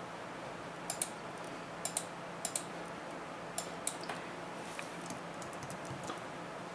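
Computer mouse clicking several times, some clicks in quick pairs, then lighter keyboard taps as a short partition name is typed, over a steady low hum.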